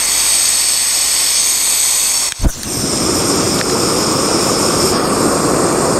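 Camp stove gas burner fed from a propane cylinder: gas hissing from the open valve, a pop about two and a half seconds in as it lights, then the flame burning with a steady roar.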